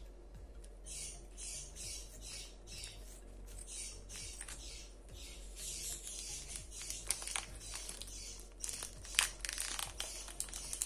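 Plastic cheese wrapper crinkling and tearing as it is pulled open by hand, with sharp crackles from about six seconds in, over soft background music with a steady beat.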